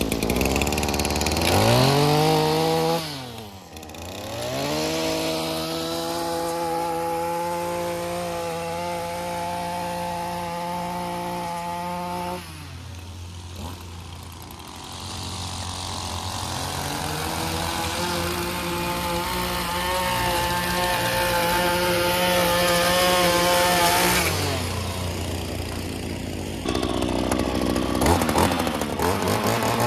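Gas-powered chainsaw running on a tree trimming job, its engine revving up and down in long stretches: high from the start, easing off about three seconds in, dropping back around twelve seconds, then climbing again, with a sudden change near the end.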